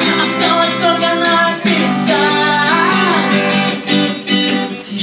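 Live pop-rock band playing an instrumental passage: electric guitars, bass guitar, keyboard and drums, with a melodic lead line bending in pitch over sustained chords.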